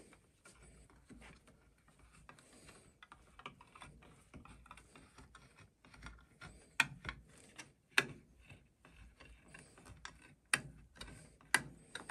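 Hook-type can opener of a Mikov Stovka pocket knife cutting around the rim of a tin can lid: a quiet, irregular run of small clicks and crunches as the blade levers through the metal, with a few sharper clicks in the second half.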